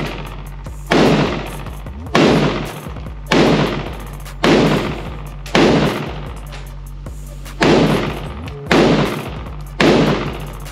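IWI Galil ACE pistol in 7.62x51 NATO (.308) fired semi-automatically: eight loud shots about a second apart, with a longer pause past the middle. Each shot rings with a long echo off the walls of an indoor range.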